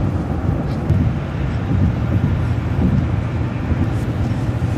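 Bus travelling at freeway speed: a steady low rumble of engine and road noise.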